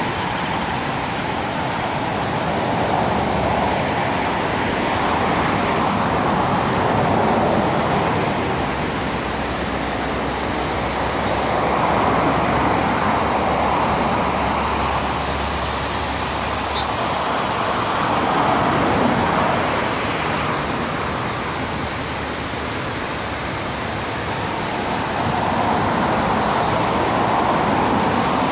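Road traffic passing by, each vehicle swelling up and fading away every few seconds, over a steady rush of water pouring over the river weir.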